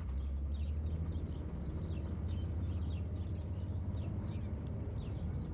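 Steady low rumble of a car's engine and road noise heard from inside the cabin, with many short, high, falling chirps over it.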